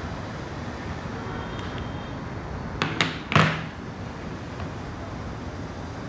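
Steady low background hiss, broken about halfway through by three sharp clicks or taps in quick succession, the last one loudest.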